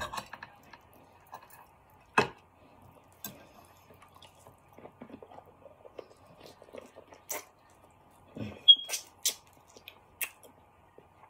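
Sparse wet clicks and soft taps, about half a dozen spread out with a low thud near the end, from eating a seafood boil and handling the food with sauce-covered hands.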